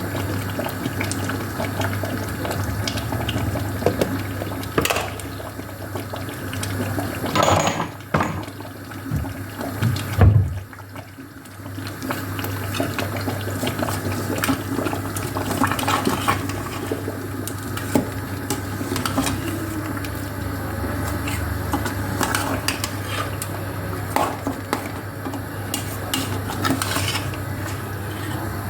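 Water running and splashing with pots and dishes clinking now and then, over a steady low hum.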